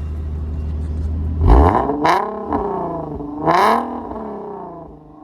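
A car engine idling, then blipped three times: two short revs close together, then a third about a second and a half later, the pitch rising and falling with each before it drops back to idle.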